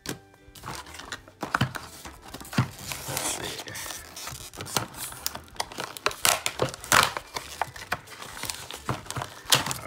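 Stiff clear plastic blister packaging crinkling and crackling in the hands as it is worked open, with many irregular snaps and crackles throughout.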